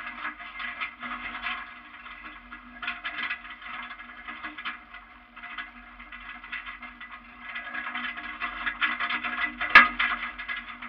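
Vehicle driving over a rough dirt track: a steady low engine drone under rattling road noise that swells and fades, with a sharp clunk about ten seconds in.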